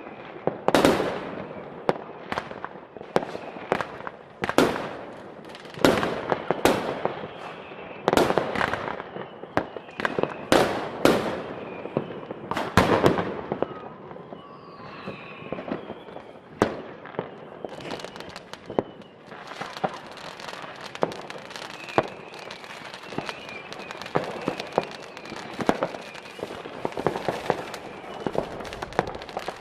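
New Year's Eve fireworks going off: a string of loud, sharp bangs from rockets and firecrackers, then, after about thirteen seconds, denser and quieter popping and crackling.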